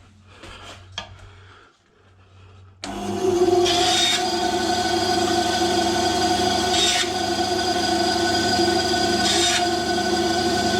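A few light handling knocks, then about three seconds in an electric power saw starts and runs steadily. The sound turns briefly rougher about every two and a half to three seconds as the blade cuts through short lengths of 10 mm wooden dowel.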